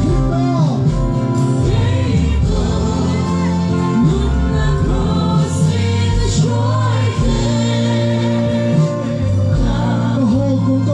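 Live gospel worship song: a band playing over loudspeakers with many voices singing together, loud and steady.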